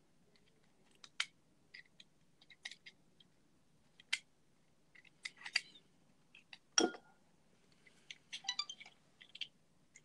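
Scattered clicks and light knocks of hard plastic and a metal tool as the sponges are pulled out of an opened Canon ink cartridge, with one louder knock a little before seven seconds in and a quick run of clicks soon after.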